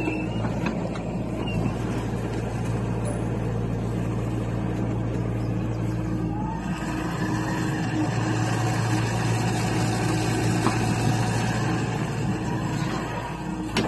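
John Deere 60G compact excavator's diesel engine running steadily under working load as the hydraulics dig and move soil. About halfway through its sound grows a little fuller.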